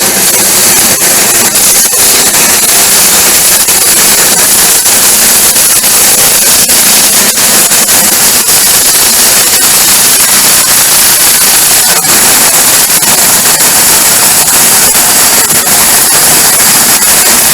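Hercules electric nibbler punching its way through sheet steel: a loud, harsh, rapid clatter that runs steadily and stops near the end.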